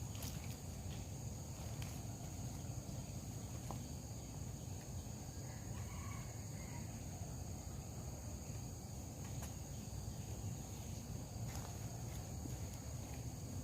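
Steady high-pitched insect chorus over a low outdoor rumble, with a few faint clicks.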